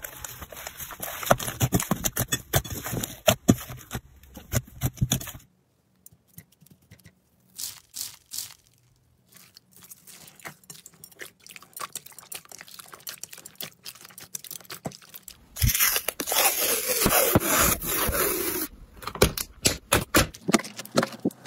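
Slime being worked by hand: a dense run of sticky clicks, pops and crackles. It breaks off abruptly several times as one clip gives way to the next, with a louder stretch of close-up scraping and crackling about three quarters of the way through.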